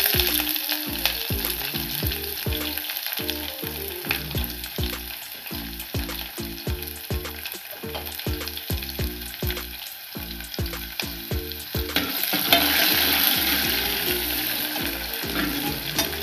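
Chopped onion frying in hot oil in an aluminium pot for a tadka, a steady sizzle that grows louder about twelve seconds in.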